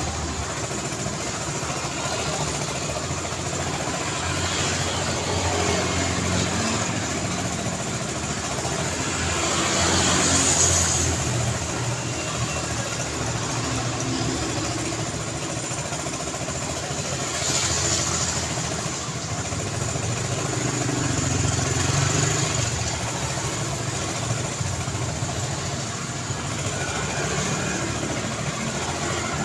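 Road traffic: a steady background of car engines and tyre noise, with individual vehicles swelling past about a third of the way in, a little past the middle, and again soon after.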